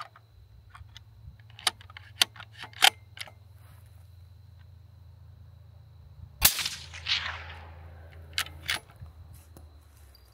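Bolt of a 6.5 Creedmoor bolt-action rifle clicking as it is worked, then one suppressed shot through an Airlock Zero Gravity suppressor, a sharp report with an echo that fades over about a second and a half, measuring about 130 dB(A) at the shooter's ear. Two more sharp clicks follow soon after the shot.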